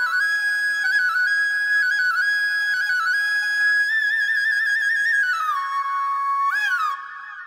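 Solo bamboo flute (bansuri) melody: long held high notes with quick ornaments, then a wavering vibrato, a step down to a lower note and a short bend before it fades out near the end.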